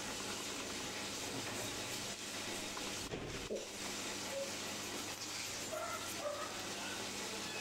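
Rough collie puppy, four weeks old, giving a few short, high squeaks in the second half over a steady hiss, with a soft bump about three seconds in.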